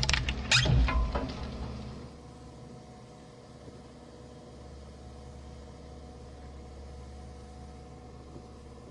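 Shredder crunching through the last of a plastic toy animal figure with loud sharp cracks for the first second or so, then the shredder running empty with a steady low hum.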